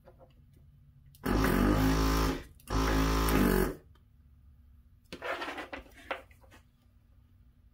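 Hakko FR-410 desoldering station's vacuum pump running in two bursts of about a second each, a steady buzz with a hiss of air sucked through the hot desoldering nozzle as it draws molten solder off a board joint. Softer scattered clicks and rattles follow near the end.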